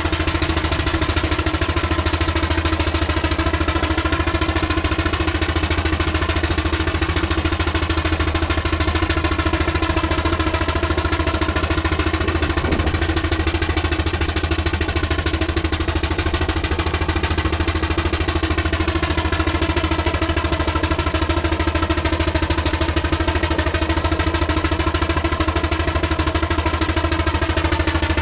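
Steady, loud mechanical running noise, engine-like, with its pitch drifting slowly up and down.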